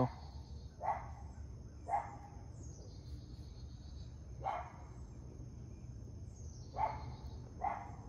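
A dog barking faintly, five short single barks spread a second or more apart.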